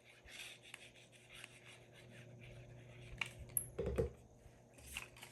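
Faint rubbing and scratching of paper being handled and glued. A few sharper taps come about three and four seconds in, the louder one a dull knock.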